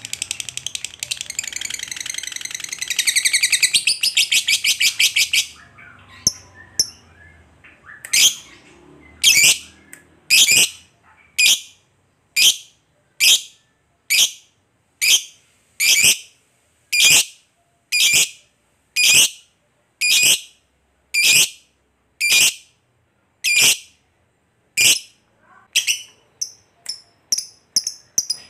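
Lovebird calling: a long, fast chattering trill that grows louder about three seconds in and cuts off about five seconds in. Then come single sharp chirps about once a second, turning into quicker, higher chirps near the end.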